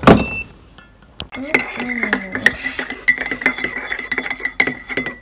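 A thump at the start, then a metal teaspoon stirring coffee in a ceramic mug from about a second in. The spoon clinks quickly against the mug's sides, with a steady ringing tone.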